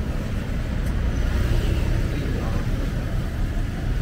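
Steady low rumble of street traffic, with voices in the background.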